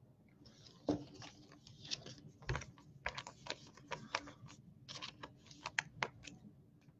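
Hands handling baseball cards and foil card packs: a quick, irregular run of soft flicks and clicks, with a heavier knock about a second in and another about two and a half seconds in.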